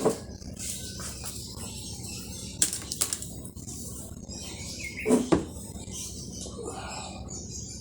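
A few sharp clicks and knocks, the loudest about five seconds in, from hands and tools handling washing machine parts, over a steady low background hum.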